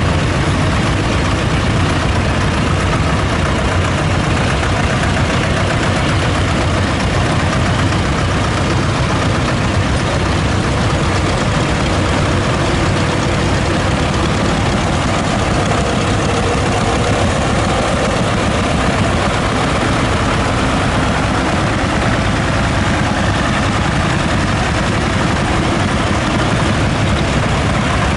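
Several small vintage tractor engines running together at low speed, among them a T-25 Vladimirets two-cylinder air-cooled diesel, with a steady, even level throughout.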